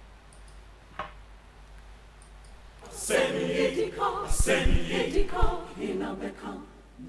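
After a quiet stretch broken by a single click about a second in, a choir starts singing about three seconds in, with a few deep thuds under the voices.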